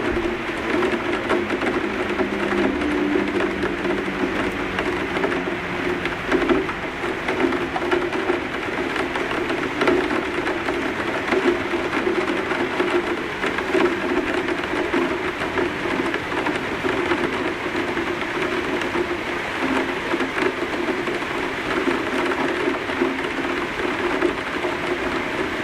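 Heavy downpour drumming steadily on an outer window sill.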